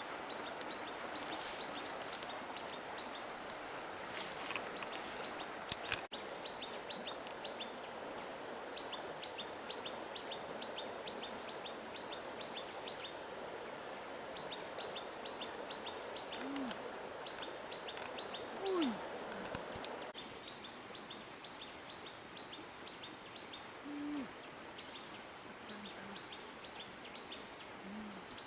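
Countryside ambience of birds: quick repeated high chirps over a steady hiss, joined from about halfway on by a few short low hoots, the loudest a little past the middle. Brushing and rustling of plants in the first few seconds.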